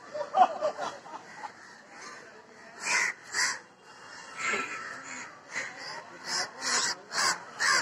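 A series of about eight short, harsh animal calls, starting about three seconds in and coming closer together near the end.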